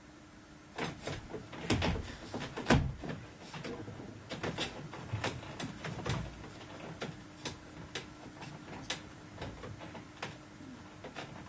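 Irregular clicks and knocks, a few of them louder thumps about two to three seconds in, from a stage performer miming play at a computer game.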